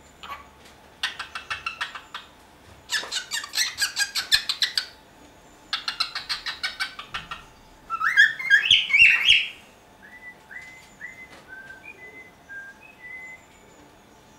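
Cockatiel singing: three bursts of rapid chattering pulses, then a loud warbling phrase about eight seconds in, followed by a run of soft, short whistled notes.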